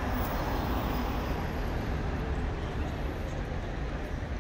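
Steady city street ambience: a continuous low rumble of road traffic.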